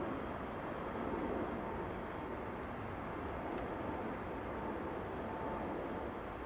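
Jet airliner engines: a steady rumble with a faint, steady whine.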